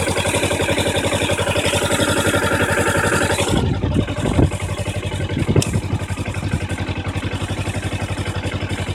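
2012 Kawasaki Ninja 250's parallel-twin engine idling, with a high-pitched squeaking over it for the first three and a half seconds that cuts off suddenly. The squeak comes only while the clutch is pulled in and stops as soon as the clutch is let out; a few clunks and a sharp click follow.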